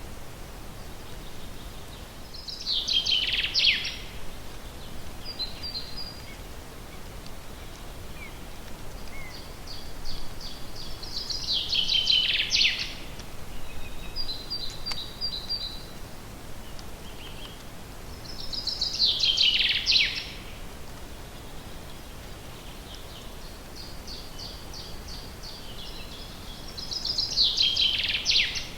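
A songbird repeating the same song four times, about every eight seconds: a run of quick notes that grows louder and falls in pitch. A second, fainter bird gives short series of high notes in between, over a steady background hiss.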